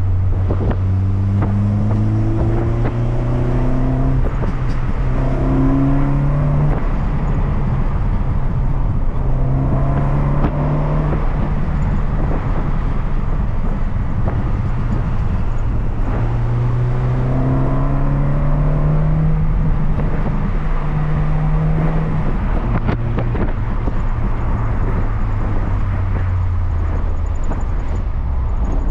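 In-cabin sound of a Rover Metro running a Lotus Elise's Rover K-series four-cylinder engine, accelerating hard: the engine note climbs and drops back at each gear change several times, with one long pull past the middle before it settles to a lower, steadier note near the end. Road and tyre noise run underneath.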